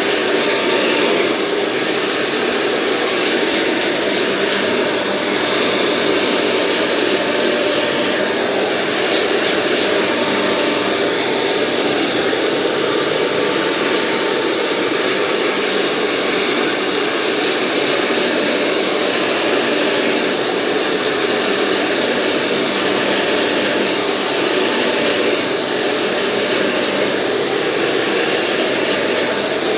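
Hair dryer running steadily while blow-drying hair: a continuous loud rush of air with small swells and dips in level.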